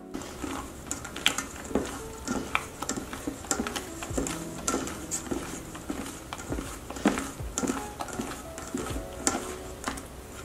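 Silicone spatula folding whipped cream into a chocolate mousse mixture in a stainless steel bowl: irregular soft scrapes and wet squishes, with frequent light clicks of the spatula against the metal.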